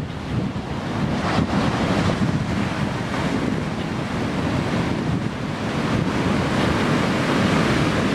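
Ocean surf: waves breaking and washing onto a shore, a steady rushing noise.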